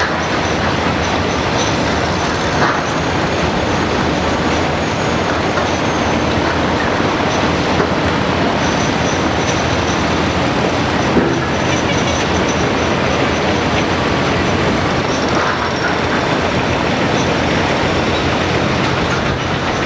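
Komatsu PC228 hydraulic excavator working in broken rock: a steady, loud diesel engine and machinery rumble mixed with the clatter and scrape of rocks under the bucket, with a few sharper knocks.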